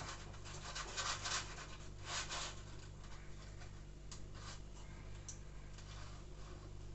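Spatula scraping and scooping sticky yeast dough in a bowl: a run of quick scrapes, then a few lighter scrapes and clicks about four to five seconds in.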